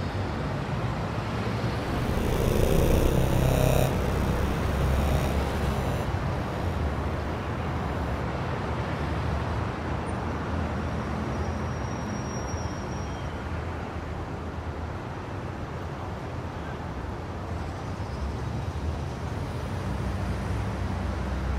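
City street ambience: a steady rumble of road traffic, swelling louder for a moment about two to four seconds in.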